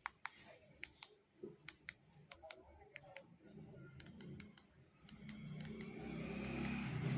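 Buttons of a Jio F320 keypad phone clicking as they are pressed one after another at an irregular pace, testing the repaired home key. A low rumble builds up from about five seconds in and grows louder toward the end.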